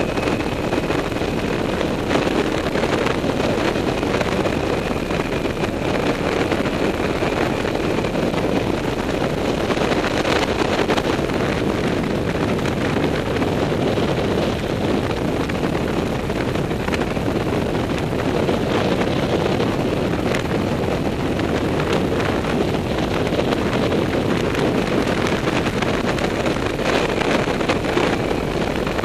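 Steady wind noise buffeting the microphone of a quad bike riding at road speed, with the quad's engine and tyre noise running underneath.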